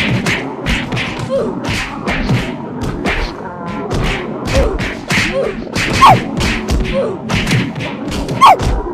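A rapid string of dubbed cartoon fight sound effects: thumps, whacks and whooshes, about three a second, mixed with short falling squeaky glides. The two loudest hits come about six seconds in and near the end.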